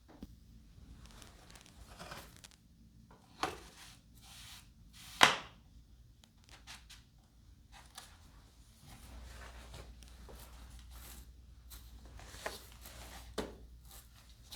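Handling noises from model-plane assembly: rustling with scattered clicks and knocks of parts, and one sharp, loud click about five seconds in.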